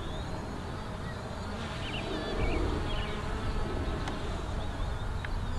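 Hubsan Zino quadcopter's propellers buzzing as it flies out and away. Wind rumbles on the microphone, strongest about halfway through.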